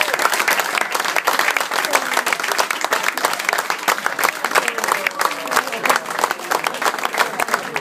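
Audience applauding steadily, a dense patter of many hands clapping, with voices in the crowd underneath.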